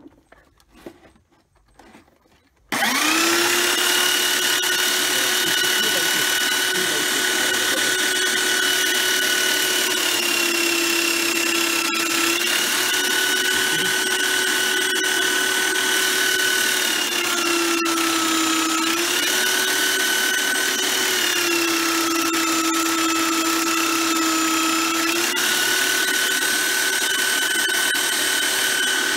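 Small bench belt sander starting up suddenly about three seconds in and running steadily with a whine. The pitch dips slightly a few times as the shoe's leather heel base is pressed lightly onto the belt to sand it flat and clean of old glue.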